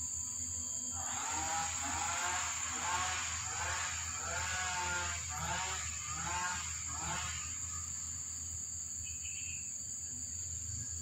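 An animal calling in a quick run of about nine short calls, each rising and falling in pitch, that stops about seven seconds in, over a steady high whine.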